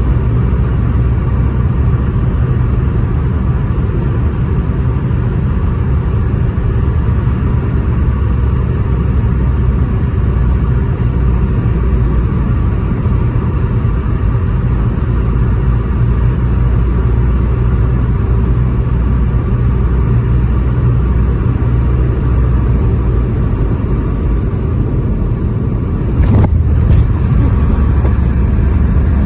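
Steady low rumble of an airliner during its landing, with a steady hum over it. About 26 seconds in, a short knock, after which the rumble is a little louder.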